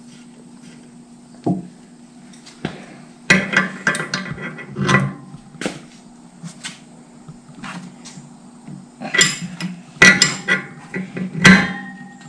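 Metal clinks and knocks of a wrench working on the hydraulic hose fitting at the lift's pump, in irregular clusters with a short ring after some strikes. The loudest run comes near the end.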